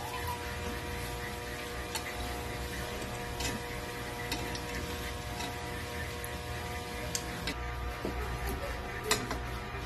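Steady hum over a faint hiss from pork frying in a wok, with a few light clicks of a metal spatula against the pan.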